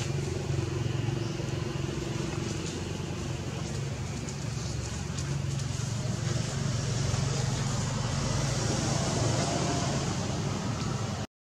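A steady low engine hum, like a motor vehicle running, with a faint background haze; the sound cuts out briefly near the end.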